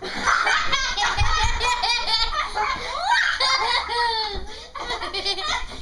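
A person laughing hard in quick, pitched bursts, with a short break about three-quarters of the way through.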